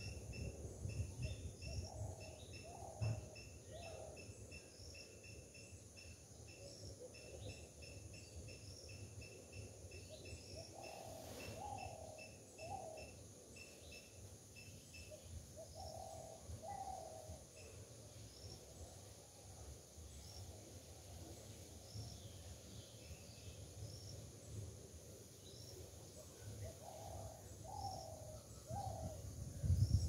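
Birds calling: a low three-note call comes four times, and a fast, regular run of short high chirps fills the first twelve seconds. A steady low rumble lies underneath.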